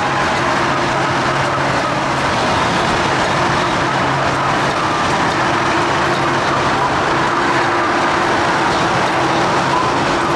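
Steady, loud mechanical drone with two held hums over a rushing noise, like engines running.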